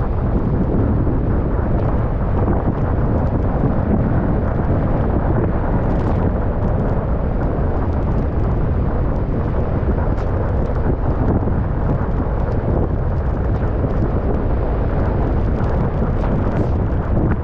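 Steady wind buffeting the microphone, a constant low rumble.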